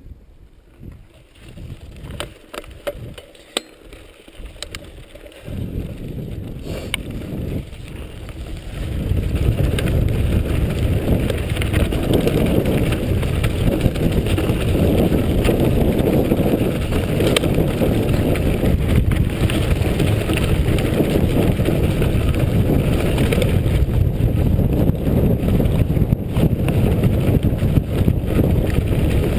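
Mountain bike descending a rough, rocky dirt track: a dense rumble and rattle of tyres and frame over stones, with scattered sharp clicks at first. It becomes much louder about nine seconds in and stays loud.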